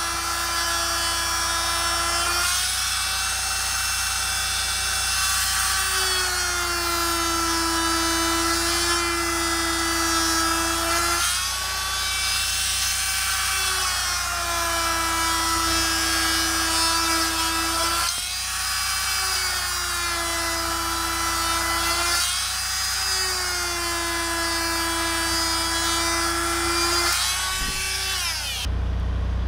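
Oscillating multi-tool with a straight razor blade buzzing steadily as it slices the tread lugs off a rubber turf tire, its pitch dipping and recovering every few seconds as the blade bites into the rubber. It stops abruptly near the end.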